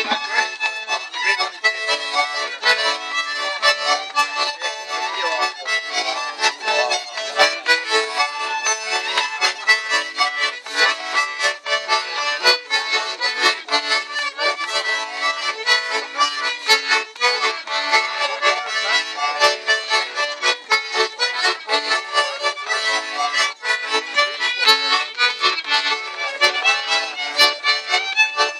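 A button accordion and a fiddle playing a lively traditional dance tune at a quick, steady beat.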